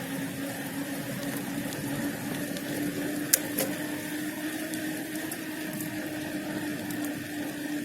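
Motorcycle riding along at a steady speed: an even engine hum whose pitch rises slowly, with two sharp clicks a little before the middle.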